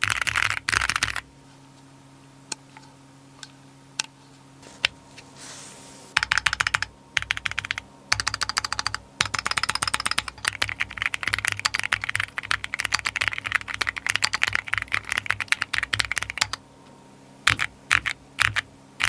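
Typing on a Keychron Q15 Max mechanical keyboard: a quick run of keystrokes, then a few single key clicks with pauses, then fast continuous typing for most of the rest, breaking into short bursts near the end.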